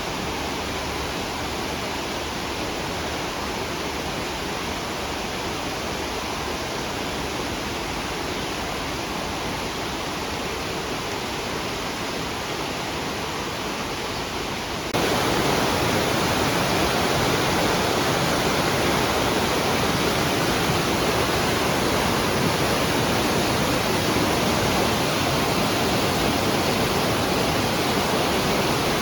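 Rain-swollen mountain stream rushing steadily over rocks. About halfway through the sound abruptly becomes louder and fuller.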